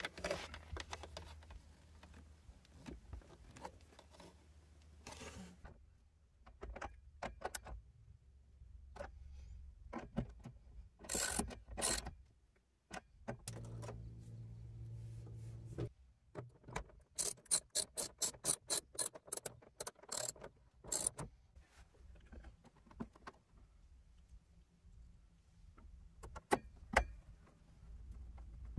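Scattered clicks, taps and rattles of hand tools and small wiring parts being handled, with a quick run of about a dozen even clicks, roughly four a second, a little past the middle.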